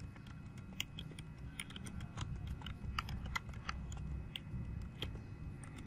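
Typing on a computer keyboard: irregular keystroke clicks, a few a second, over a low steady background hum.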